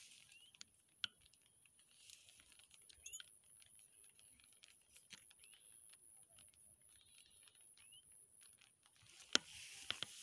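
Faint rustling and clicking of rice stalks brushing against the phone as it moves through them, with a steady high whine that stops about nine seconds in and a few sharper clicks near the end.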